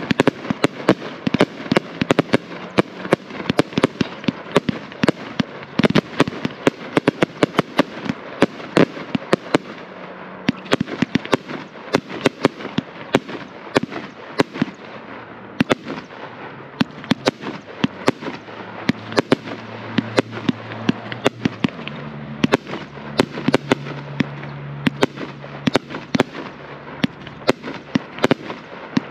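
Consumer firework cake firing a long run of aerial shots without a pause: sharp bangs of bursting shells, several a second, over a haze of crackling stars.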